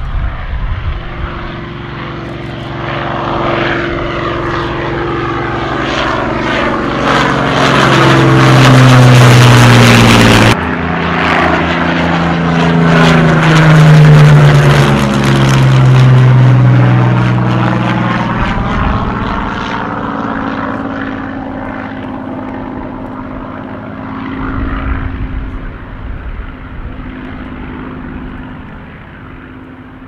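Two WWII propeller fighters flying low overhead one after the other: a Hawker Hurricane's Rolls-Royce Merlin V12 drone builds to a loud pass and falls in pitch as it goes by. After an abrupt cut a Supermarine Spitfire's piston engine passes with the same falling drone and fades as it climbs away.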